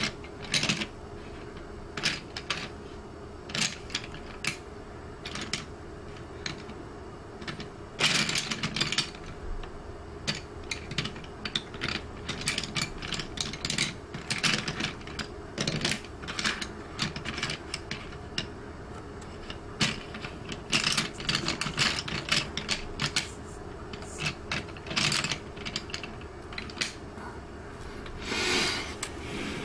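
Coloured pencil scratching on drawing paper in short, irregular strokes, over a faint steady hum.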